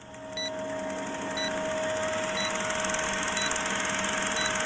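Film-countdown sound effect: an old movie projector's rapid steady clatter with a steady hum, and a short high beep once a second as each number ticks down. It fades in over the first second.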